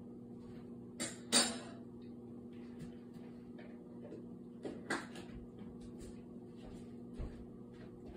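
Household knocks and clatter: a pair of sharp knocks about a second in, the loudest, another pair about five seconds in and one more near the end, over a steady low hum.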